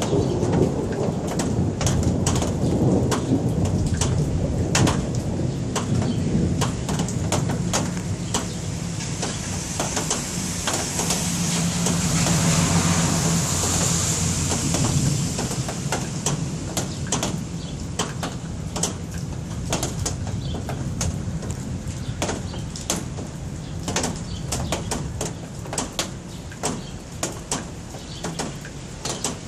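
Rain falling during a thunderstorm, with many sharp drip-like clicks throughout and a low thunder rumble over the first several seconds. Around the middle a hiss swells and fades.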